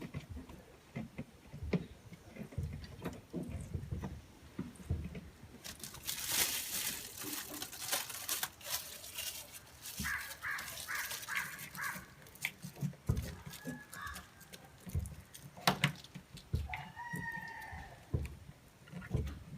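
Handling noises of plastic sheet being worked over a fridge case: knocks, clicks and a spell of rustling partway through. A bird calls in the background, with a quick run of notes about halfway through and a longer call near the end.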